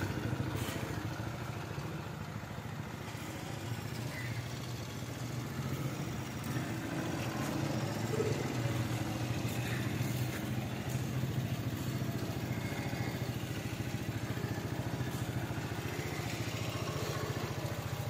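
A 100cc single-cylinder motorcycle engine idling steadily.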